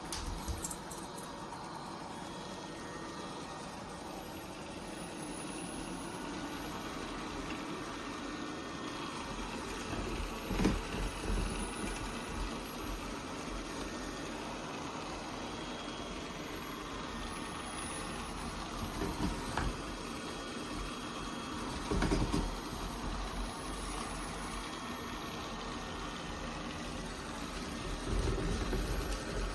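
ILIFE A12 Pro robot vacuum running steadily while it stays stuck in one spot instead of moving on, with a few brief knocks along the way.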